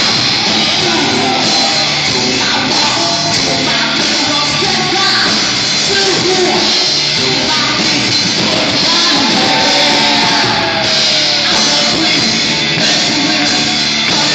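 Loud live band music with a singer's voice over it, running steadily throughout.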